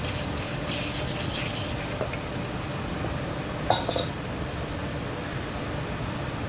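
Brake parts being handled: a single sharp metallic clink with a short ring just under four seconds in, over a steady background hum, with faint rubbing in the first couple of seconds.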